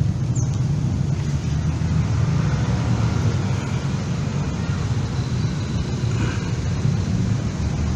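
A steady low rumble, even and unbroken, such as a running motor or wind on the microphone.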